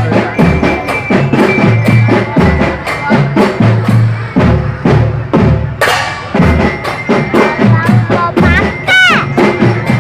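Loud music with a steady, driving drum beat and heavy bass, with a wavering high pitched line about nine seconds in.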